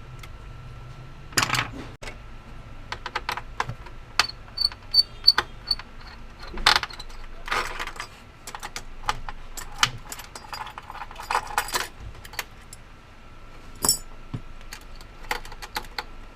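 Irregular clicks, taps and light metallic clinks of small hard parts and tools being handled, over a faint steady tone.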